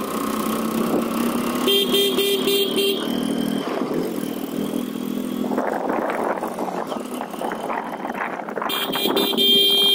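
A 100cc motorcycle running along a winding hill road, with a horn sounded in four or five quick short beeps about two seconds in and one long held honk near the end. Wind rushes over the microphone in between.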